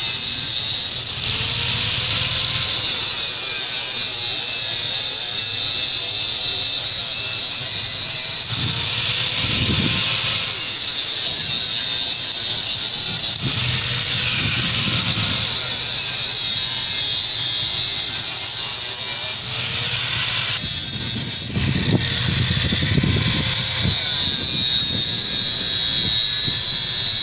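Handheld angle grinder with a cutting disc grinding through strands of steel wire rope, running continuously with a loud, hissing grind that swells and eases several times as the disc bites into one strand after another.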